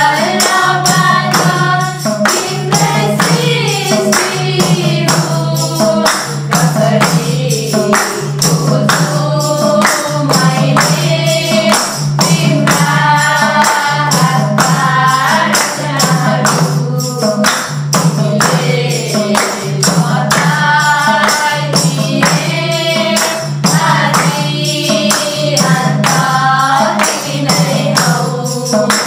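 A group of young men's and women's voices singing a Nepali bhajan together. They are accompanied by a madal hand drum, a jingling tambourine and steady hand clapping keeping an even beat.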